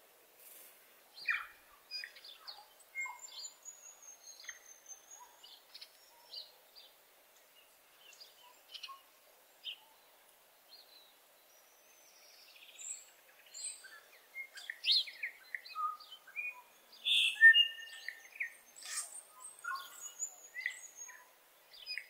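New Zealand bellbird (korimako) calling: a string of short separate notes and chirps, sparse at first and coming thicker and louder in the second half.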